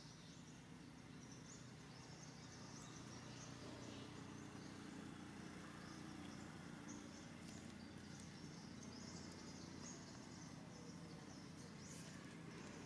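Faint outdoor ambience: a steady low hum with scattered faint high-pitched chirps.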